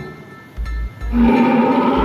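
Recorded roar of an animatronic Tyrannosaurus rex exhibit. It dies down, then a new low, wavering growl starts about a second in.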